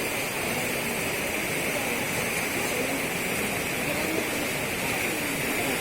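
Steady rush of flowing floodwater, with faint voices underneath.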